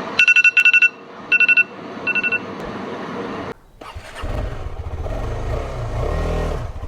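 A quick series of short, high electronic beeps in three groups, then, after a brief break about three and a half seconds in, a motorcycle engine running steadily.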